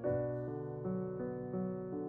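Background music: soft piano, a new note sounding about every third of a second over held lower tones.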